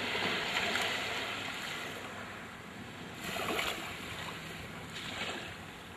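Small waves washing up onto a sandy beach in a calm bay. The wash is loudest in the first second and swells again about halfway through and once more near the end.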